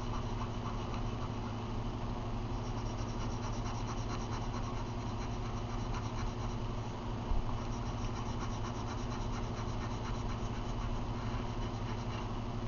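Pink coloured pencil scratching back and forth on paper in quick shading strokes as hair is coloured in, over a steady low hum. A brief knock comes about seven seconds in.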